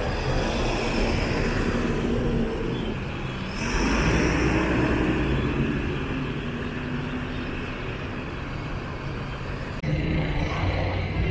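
Diesel city bus engines running at a bus terminal: a low-floor Mercedes-Benz city bus with a Caio body passes close by, then buses idle and pull along the terminal lane. The sound changes suddenly about three and a half seconds in and again near the end.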